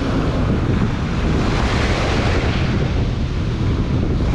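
Strong wind buffeting the microphone with a heavy, steady rumble, over sea surf washing onto the beach.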